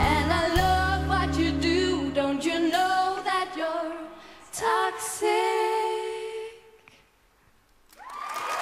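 Two women's voices singing the closing lines of a song in harmony over a low sustained bass tone. The bass drops out about three and a half seconds in, and the voices carry on alone and hold a final note that fades to near silence. Audience applause swells up near the end.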